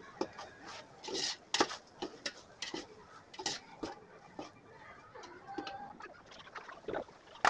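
Steel slotted spoon scraping and clinking against an aluminium pot while tomatoes and onions are stirred, in irregular short knocks and scrapes.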